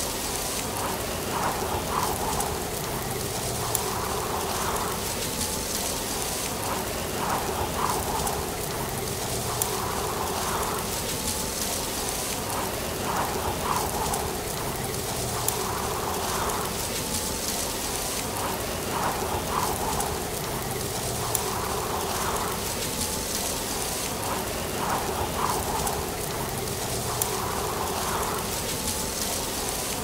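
Dry autumn leaves rustling: a steady crackling hiss with soft swells that recur every couple of seconds.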